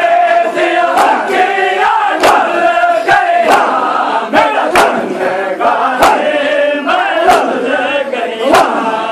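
Crowd of men chanting a noha in unison while beating their chests in matam. The chest slaps land together in a steady rhythm, about one every one and a quarter seconds, seven times.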